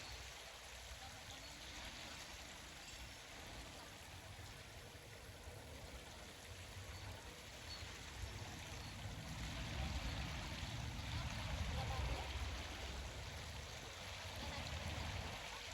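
Steady outdoor lakeside ambience: a stream-like hiss of running water with a low rumble that swells about ten seconds in and again near the end.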